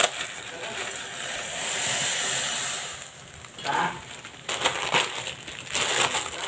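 Plastic instant-noodle packet crinkling as the dry noodle block is tipped into a pot of boiling water, over the steady hiss of the boil. Several sharp crinkles and crackles follow past the middle.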